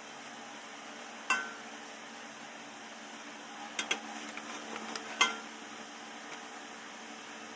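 Rusty steel pipe clinking against the jaws of a steel bench vise as it is set in to be clamped: a knock about a second in, a couple more near four seconds, and the loudest about five seconds in, each with a short metallic ring, over a steady low hum.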